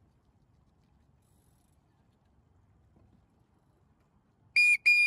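Two short, shrill whistle blasts close together, about four and a half seconds in, over a faint low background.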